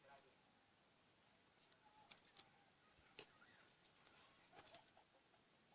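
Near silence with a few faint clicks and light rustles, about two, two and a half and three seconds in and a small cluster near the end.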